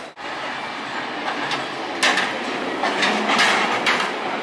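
San Francisco cable car passing close by, its wheels and running gear clattering on the rails. From about halfway through, the clatter comes as a string of loud, sharp rattles.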